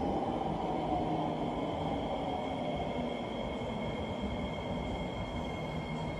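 SMRT C151A metro train pulling into an underground platform and slowing, a continuous rumble that eases off gradually. A steady high whine joins the rumble about a second in.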